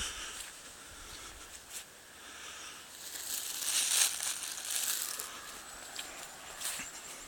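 Rustling and crunching with scattered sharp clicks, swelling loudest for about two seconds in the middle.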